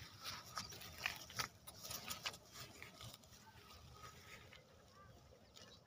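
Faint rustling of leafy field plants and a few light clicks as a greyhound on a metal chain leash moves and sniffs through them, busiest in the first two seconds or so, then quieter.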